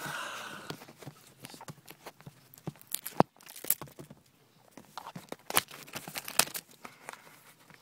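Handling noise: cloth rubbing and rustling against the camera's microphone, with irregular sharp clicks and knocks, the loudest a little over three seconds in.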